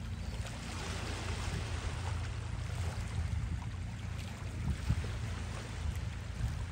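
Sea water washing and lapping against a rocky shore, with a steady low rumble of wind on the microphone.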